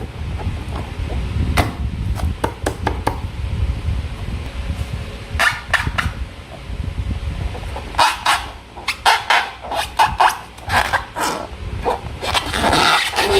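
Slime being squished and worked by hand with rubber balloons, making sticky, crackling squelches and clicks. The sounds come thicker and faster from about two-thirds of the way in.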